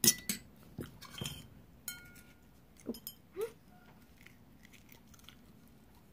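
Several short clicks and clinks of a metal spoon against a balut eggshell and the tableware, one clink ringing briefly, bunched in the first few seconds.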